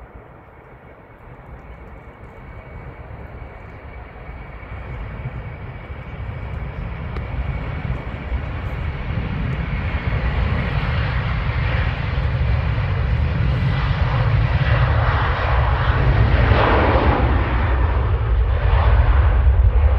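Aer Lingus Airbus A330's jet engines at takeoff power on the takeoff roll, the noise building steadily louder as it accelerates and is loudest near the end as the aircraft rotates and lifts off.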